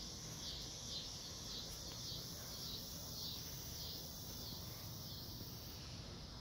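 Insects buzzing in a high, pulsing rhythm, about two pulses a second, fading out near the end.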